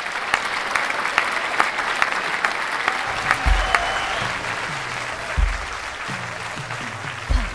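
Audience applauding, loud at first and slowly thinning out, with three low thumps spaced about two seconds apart in the second half.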